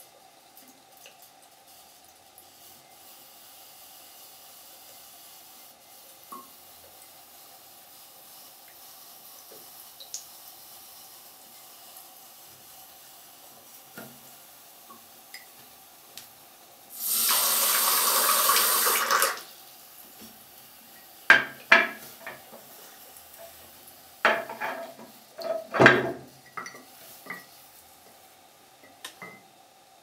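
Water runs into a glass in a sink for about two seconds. This is followed by several sharp knocks and clinks of the glass against the sink. A faint steady hum sits underneath throughout.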